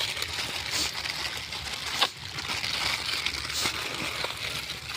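Plastic Maggi instant-noodle packets being torn open and crinkled, with a few sharp crackles over a steady hiss from the cooking fire and pot.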